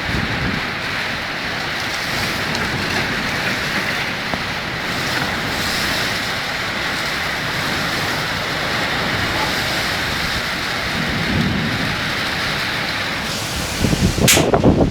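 Heavy rain pouring steadily in a strong storm. About a second before the end, wind gusts start buffeting the microphone, much louder, with a sharp click among them.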